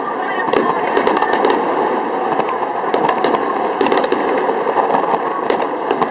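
Fireworks going off close to the launch site: groups of sharp crackling pops over a steady dense noise of continuous bursts.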